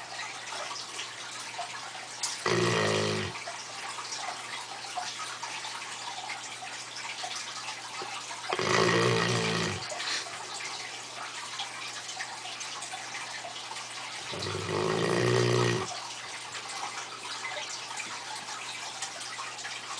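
Neapolitan Mastiff snoring in its sleep: three loud, rattling snores about six seconds apart, each lasting a second or so. Between them there is a steady background hiss and a faint low hum.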